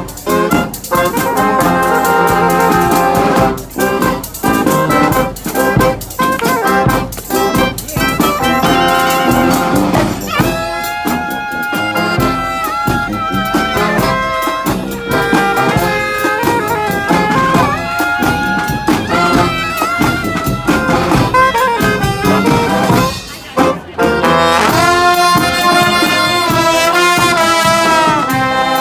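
Live marching band music: brass horns playing held notes and chords over a steady drumbeat. The band drops out briefly about 24 seconds in, then the full ensemble comes back in together.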